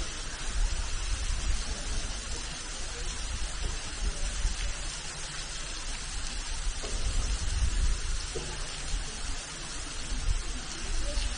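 Small creek running over rocks and spilling into a pool: a steady hiss of flowing water, with an uneven low rumble underneath.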